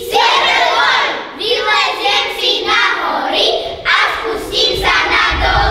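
A group of children singing together, loudly, in one voice.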